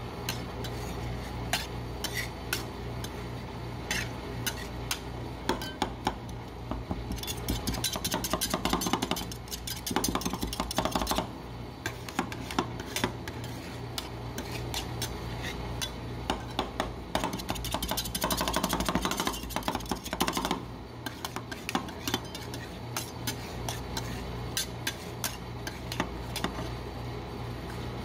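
Two metal spatulas chopping and scraping ice cream with brownie and fudge-cookie pieces on a frozen steel rolled-ice-cream plate: sharp metal taps on the plate, with two fast flurries of chopping in the middle, over a steady low hum.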